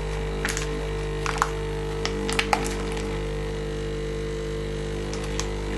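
Snorkel-type vacuum sealer's pump running with a steady hum, drawing the air out of a plastic bag around a steak, with scattered light crackles and clicks throughout.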